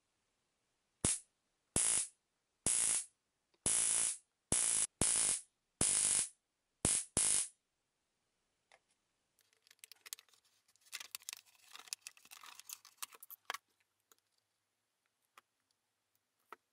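30 kV high-voltage generator module powered in nine short bursts from a 3.6 V Li-ion battery, each a loud electric buzz of arcing lasting under half a second. Faint crackling handling noise follows in the second half.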